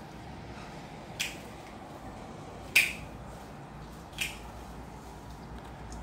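Three crisp snaps about a second and a half apart, the middle one loudest: leafy plant stems being snipped.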